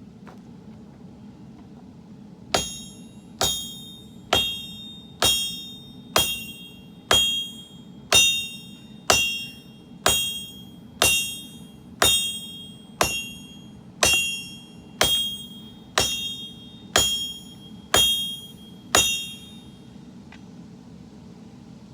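Hand hammer striking a sword blade on an anvil, about eighteen evenly paced blows roughly a second apart, each with a bright metallic ring that dies away before the next.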